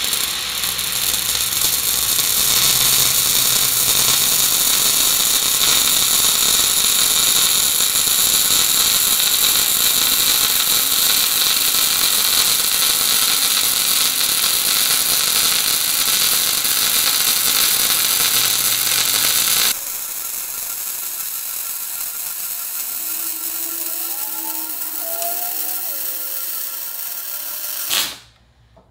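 MIG welding arc running metal-cored steel wire in spray transfer at 290 inches a minute and 23.6 volts, laying a fillet weld on a steel T-joint. It makes a steady, smooth hiss without spatter crackle, grows quieter about twenty seconds in, and cuts off abruptly near the end when the arc stops.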